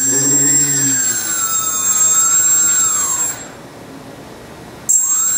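Small brushless motor of a 250-size racing quadcopter, spinning with no propeller under its ESC during output calibration: a high electric whine over a steady shrill tone, its pitch sliding up and down as the throttle is set. It stops a little past three seconds in and starts whining again near the end.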